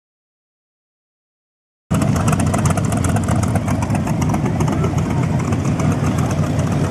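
Silence, then about two seconds in a hot rod's engine idling with a loud, fast, even rumble that cuts in abruptly.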